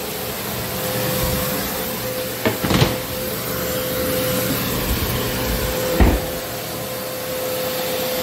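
Rotary floor buffer screening a hardwood floor, with its hose-connected dust-extraction vacuum running: a steady machine hum with one held tone. Two knocks come close together near three seconds in and another about six seconds in.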